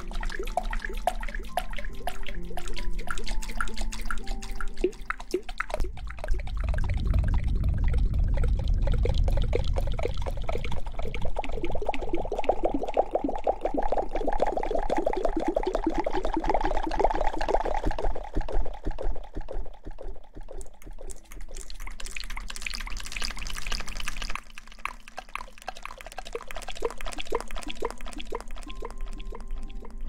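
Wet, crackling liquid sounds close to the microphones as a clear squishy object is squeezed and handled: a dense run of fast little pops and clicks that turns deeper and heavier about six to ten seconds in.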